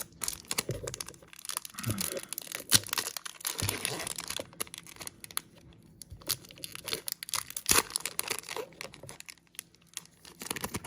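Trading card packs and cards being handled: the crinkling and tearing of a pack wrapper, with irregular small clicks and rustles as cards are pulled out and shuffled.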